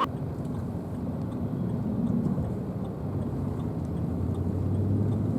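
Low, steady rumble of a vehicle engine running, with a faint hum that grows a little louder near the end.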